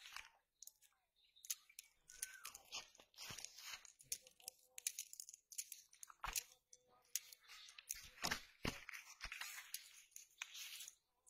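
Dry leaves and twigs crackling and rustling as they are disturbed, in an irregular string of short crunches.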